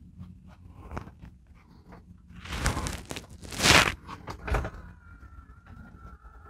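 Several loud rustles and knocks, then about five seconds in an RV power awning's electric motor starts and runs with a steady whine as the awning arm moves.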